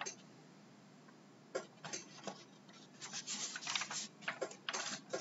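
Faint, irregular small clicks and taps, starting about a second and a half in after a brief near-silence.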